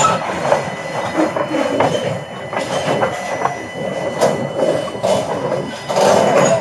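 Freight cars rolling past close by, a covered hopper and then a tank car: a steady rumble of steel wheels on the rails with irregular clicks and knocks, and a faint thin wheel squeal held underneath.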